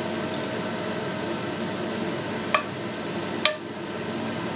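A metal spoon scraping sour-cream sauce out of a frying pan into a clay pot, with two sharp clinks of the spoon against the pan about a second apart, past the middle. A steady hum runs underneath.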